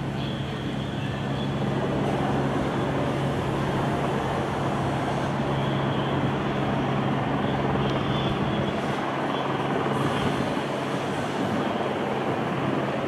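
Low, steady hum of idling vehicle engines over street traffic noise, the hum fading about halfway through.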